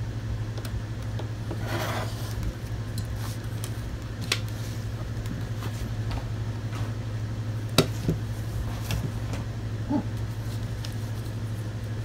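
A rotary cutter rolling through cowhide along a steel straightedge in one short scraping stroke about two seconds in. It is followed by a few sharp taps and clicks as the straightedge and leather are handled on a wooden bench, over a steady low hum.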